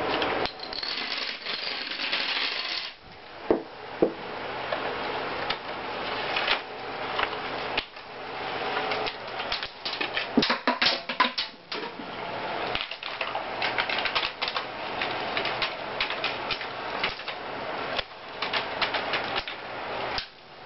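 A marble rolling along a homemade paper marble-run track, with rapid irregular clicks and rattles as it knocks against the paper sides and supports, in quick clusters here and there.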